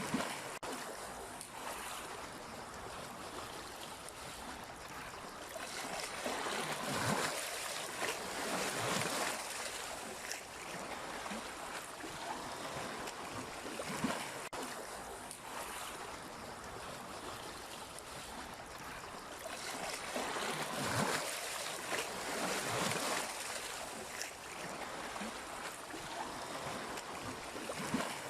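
Sea waves washing in and drawing back, a steady rush that swells into louder surges twice, roughly a quarter of the way in and again about three quarters of the way through.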